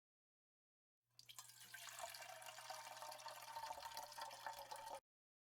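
Liquid pouring in a steady running stream, coming in about a second in and cutting off abruptly near the end, over a low steady hum.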